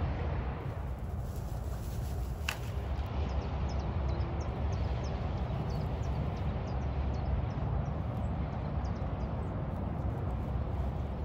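Rustling in dry grass as a small dachshund pushes through it on a scent trail, over a steady low rumble of wind on the microphone. There is one sharp snap about two and a half seconds in, and short high chirps repeat from about four seconds on.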